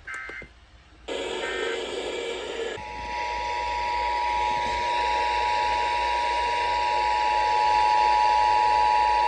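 Emergency Alert System test tones received over the radio with background hiss. The first few seconds hold short bursts of the data header, then about three seconds in the steady two-tone EAS attention signal (853 and 960 Hz) starts and holds.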